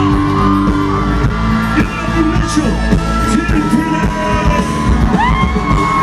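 Live country band and singer playing loud over an outdoor concert PA, with audience yells and whoops.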